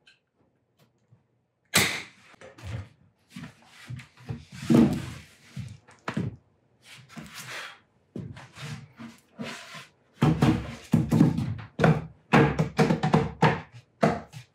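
A single sharp shot from a brad nailer about two seconds in, then irregular thunks, knocks and scraping as a plywood box is handled and set down on a wooden workbench.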